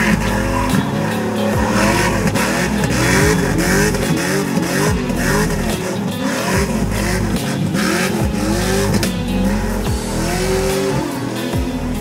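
LS3 V8 in a BMW E46 drift car doing donuts to heat its tyres: the revs rise and fall over and over, a little more than once a second, with tyre squeal from the spinning rear tyres.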